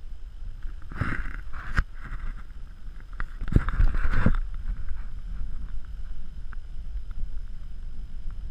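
Wind rumbling on the microphone, with two short spells of rustling and knocks about a second in and again around three and a half seconds in.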